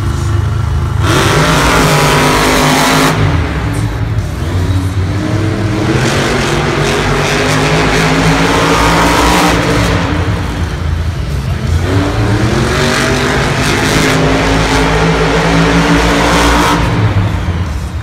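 Monster trucks' supercharged V8 engines revving hard and accelerating, climbing in pitch several times over a constant low rumble.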